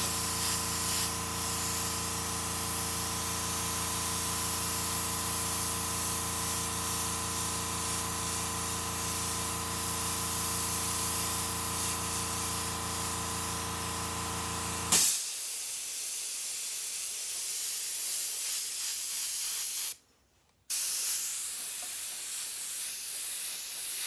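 Airbrush spraying: a steady hiss of air and paint through the nozzle. A steady hum runs under it until a little past halfway, then stops abruptly with a short sharp burst. Near the end all sound drops out for under a second.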